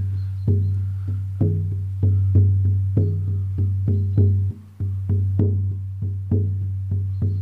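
16-inch buffalo skin shamanic frame drum on an ashwood frame, struck with a soft beater in a steady rhythm of about two strokes a second. Each stroke leaves a deep ringing boom that runs into the next.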